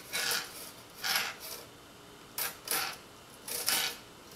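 Coiled steel magazine spring and follower being pushed down into a Winchester 1873's steel magazine tube, the spring rasping against the inside of the tube in about six short scrapes.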